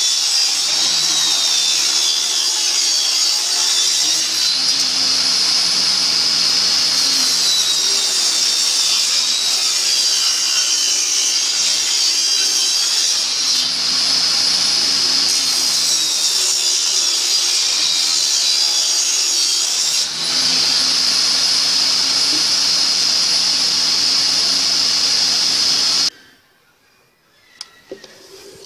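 Table saw running and cutting pine boards, a loud steady whine whose pitch wavers as it cuts. It stops abruptly near the end, leaving a few faint knocks.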